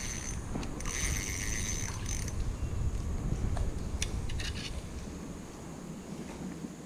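Spinning reel of an ultralight crappie rod being cranked, its gears whirring for about a second and a half as a small panfish is reeled in, followed by a few short clicks.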